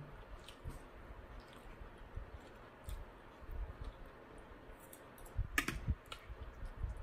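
Scattered soft clicks and taps of a metal fork and spoon against a glass bowl as noodle soup is lifted and eaten, with a sharper click about five and a half seconds in.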